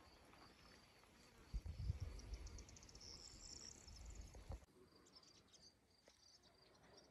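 Faint outdoor ambience: a thin, steady high trill, with a run of rapid high chirps in the middle and a few soft low thumps.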